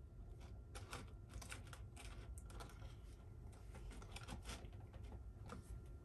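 Spoon clicking and scraping against a small plastic tub as sticky candy slime is stirred: a faint, rapid, irregular run of light clicks that thins out after about four and a half seconds.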